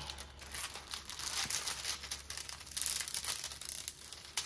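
Plastic-covered diamond painting canvas being handled and smoothed flat, its plastic film crinkling and rustling in irregular bursts, with a short sharp click near the end.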